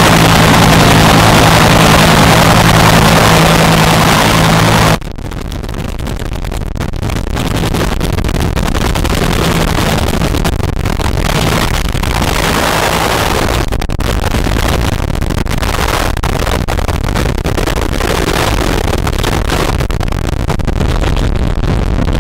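Bell UH-1 Iroquois (Huey) helicopter running: a loud, steady turbine and rotor sound with a broad rush, which drops suddenly about five seconds in to a lower rotor rumble and flutter as the helicopter lifts off and flies away.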